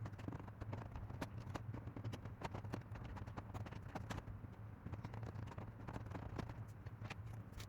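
Irregular light clicks and taps of small hard parts being handled, several a second, over a steady low hum.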